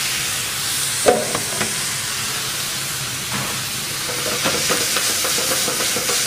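Veal stock sizzling and bubbling in a hot copper sauté pan of sliced onions, a steady hiss. A metal utensil knocks once against the pan about a second in, and the crackling picks up a little from about four seconds in.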